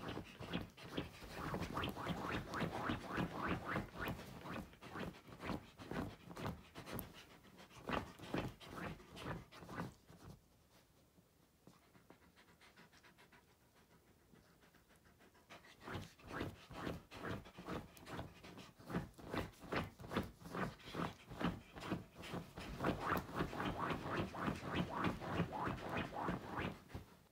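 Wolfdog digging at a soft blanket on a bed, its front paws scratching the fabric in quick, rhythmic strokes while it pants. It goes quiet for several seconds about ten seconds in, then starts again.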